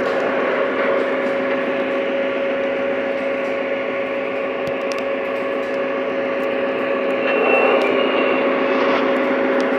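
O-gauge model diesel locomotive running past on three-rail track: a steady electric hum with the running noise of its wheels on the rails, briefly louder with a short high tone about three quarters of the way through.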